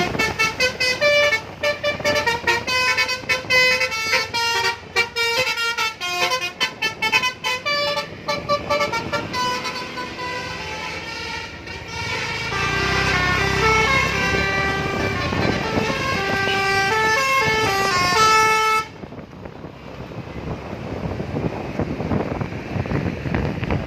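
Telolet horn on a bus, a multi-tone musical air horn playing a melody: first a quick run of short notes, then longer held notes. It cuts off suddenly about 19 seconds in, leaving a rushing noise.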